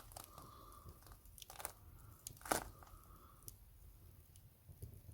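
Wood fire crackling, with a few sharp pops, the loudest about two and a half seconds in.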